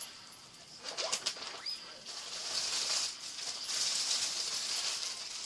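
Handling noise: a few clicks about a second in, then a few seconds of rustling and crinkling, like plastic packaging being handled.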